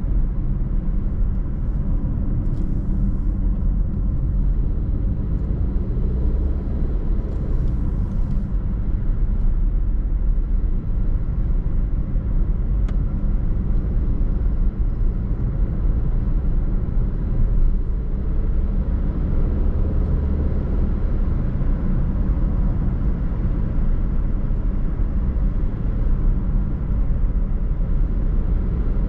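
A car driving: a steady low rumble of road and engine noise, with two brief hisses a few seconds in.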